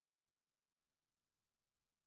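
Near silence: a faint hiss of background noise.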